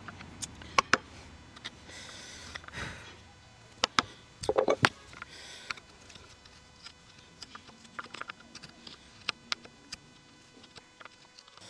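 Hammer tapping a wood chisel into a hardwood joint held in a steel vise: a few sharp taps in the first second and a short run of louder knocks a little before halfway. After that come lighter, scattered ticks and scrapes as the chisel is pushed by hand to pare the joint.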